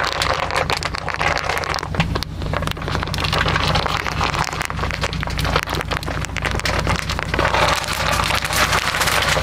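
Bubble wrap popping and crackling in a dense, continuous stream as a pickup truck's off-road tire rolls slowly over it and drags it round, with the truck's engine running as a low steady hum underneath.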